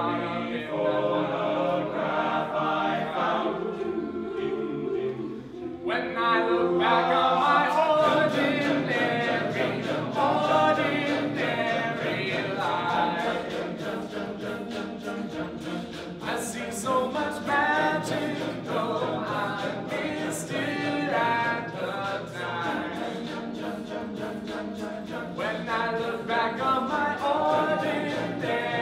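Male a cappella group singing, many voices together with no instruments, growing louder and fuller about six seconds in.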